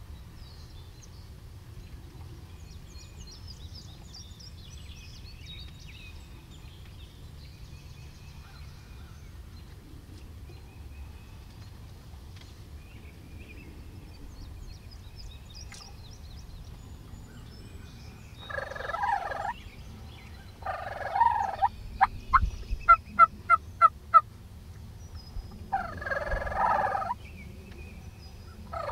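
Eastern wild turkey gobbler gobbling three times in the second half. A quick run of about eight short, sharp notes comes between the second and third gobble. Songbirds chirp faintly before the gobbling.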